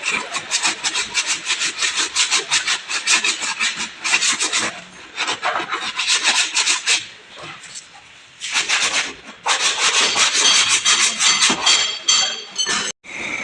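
Rapid back-and-forth rasping strokes of hand abrading on a car body panel during dent repair, with a few short pauses between runs of strokes.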